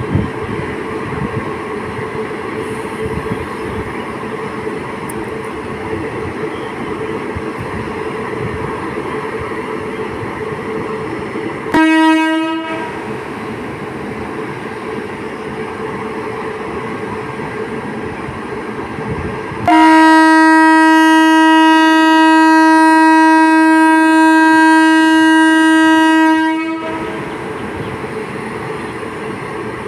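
Horn of an Indian Railways WAP-7 electric locomotive: one short blast about twelve seconds in, then a long blast of about seven seconds, each on one steady pitch, over steady train running noise.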